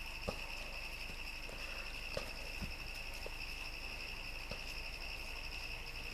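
A cricket trilling steadily as one unbroken high-pitched tone, with a few faint soft taps from handling.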